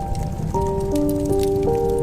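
Slow, gentle instrumental melody, one held note after another, over the steady crackle of a fireplace fire.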